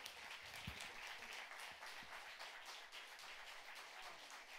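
Faint, steady applause from a concert audience, with a single low thump about two-thirds of a second in.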